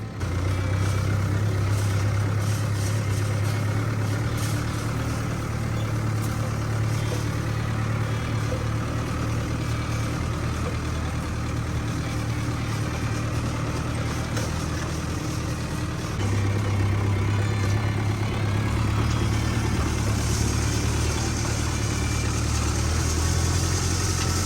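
Farm tractor's diesel engine running steadily with a deep, even hum. The hum eases a little in the middle and comes back stronger about two-thirds of the way through.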